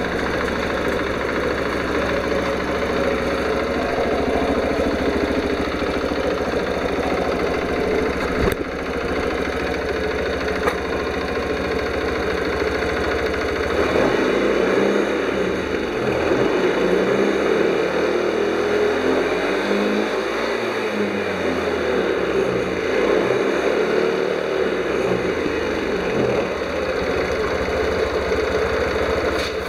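Honda Vision scooter engine running steadily at idle.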